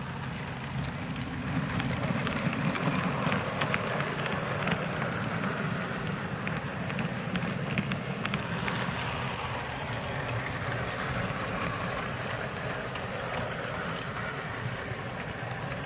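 Model train's coaches and parcels vans rolling along the track: a steady rumble with scattered clicks from the wheels.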